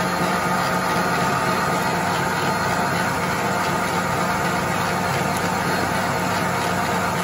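Smeg planetary stand mixer running steadily, its whisk beating egg whites and powdered sugar into a stiff meringue in a steel bowl: an even motor hum with the whir of the whisk.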